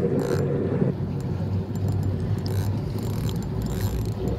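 Steady low rumble with faint scattered ticks as a fishing reel is cranked in against a hooked catfish; a brief low drone sounds in the first second.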